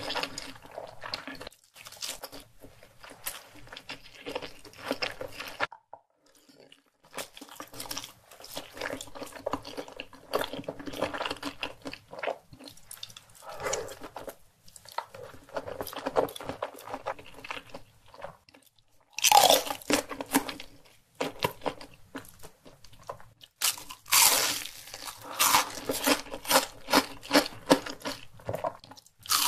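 Close-miked eating sounds: chewing and biting in irregular bursts with short pauses, and loud crisp crunching in the last few seconds as a fried hash brown is bitten and chewed.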